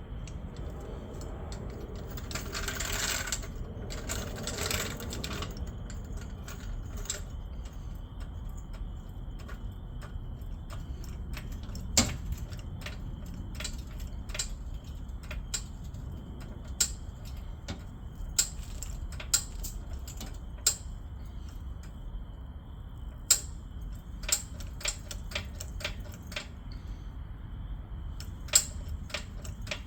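Scattered sharp clicks and light taps, about twenty of them at irregular intervals, over a steady low background. There are two short bursts of hiss a few seconds in, and a faint steady high whine from about six seconds in.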